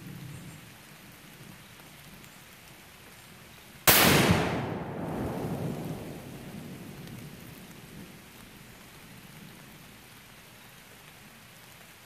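A Tannerite target detonated by a .223 rifle shot: one sudden loud blast about four seconds in, followed by a low rumble that dies away over several seconds.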